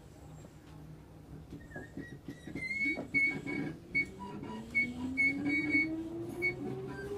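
Hankyu 5300 series electric train heard from inside the car, pulling away from a station stop: after a quiet low rumble, the traction motors start a whine that rises steadily in pitch as the train accelerates, with short high squeaks mixed in.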